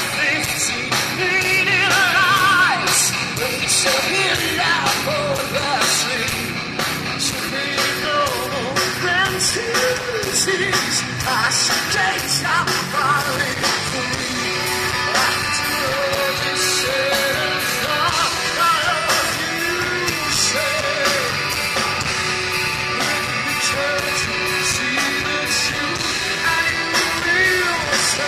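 Live rock band playing at full volume over a PA: a female lead singer sings over electric guitars, bass guitar and a drum kit keeping a steady driving beat.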